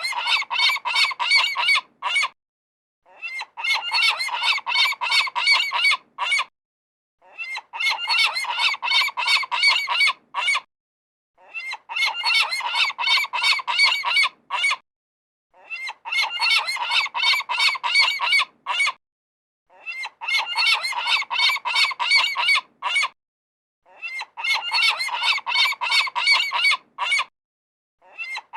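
A group of seagulls calling, many rapid overlapping cries packed into bursts of about three seconds, each cut off by about a second of dead silence; the same burst repeats again and again.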